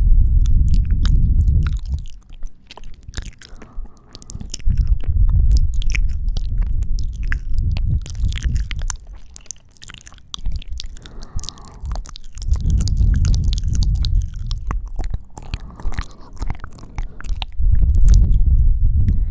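Close-miked ASMR kissing and sucking mouth sounds: many sharp wet smacks and clicks against the microphone, over long stretches of low rumbling breath blown onto the mic. The rumble drops away briefly about two, ten and seventeen seconds in.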